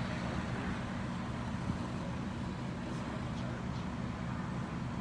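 Steady drone of idling fire-apparatus diesel engines, a constant low hum under a continuous hiss.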